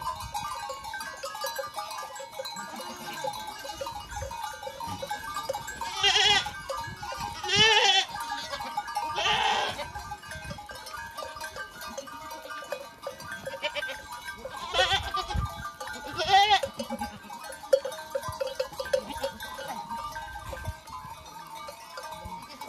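A herd of goats bleating: loud, quavering bleats, three in quick succession a few seconds in and two more past the middle.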